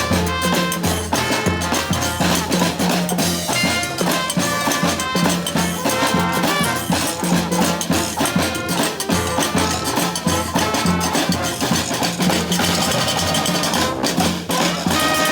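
Brass band playing live: horns over drums, continuing without a break.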